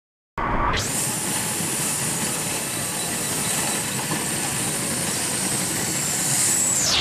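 Car cabin and road noise from a dashcam played fast-forward at eight times speed: a high, steady hissing rush with a whine that sweeps up in pitch as it starts, about half a second in, and sweeps back down near the end.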